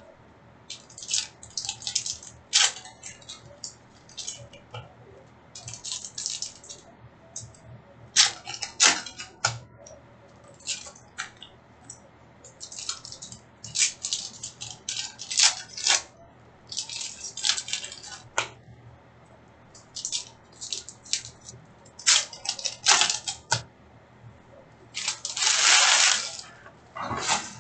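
Hockey card packs being opened and handled: irregular crinkles and rips of pack wrappers, with a longer, louder rustle near the end.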